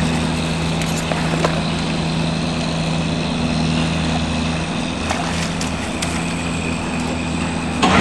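A steady engine drone, a low hum of a few held tones, with a few faint clicks over it.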